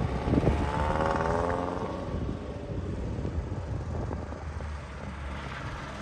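Citroën GS's air-cooled flat-four engine revving as the car accelerates away, its pitch rising over the first second or so, then running quieter and steadier.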